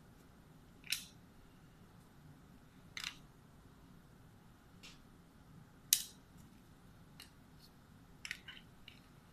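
Scattered sharp clicks and ticks, about seven of them at uneven gaps, the loudest about six seconds in, over faint steady room noise.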